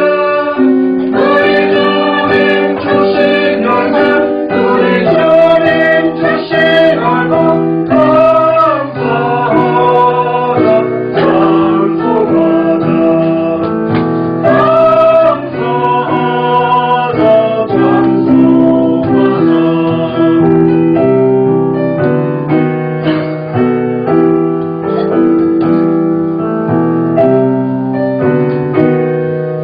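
Choir singing a hymn in sustained phrases, with piano accompaniment.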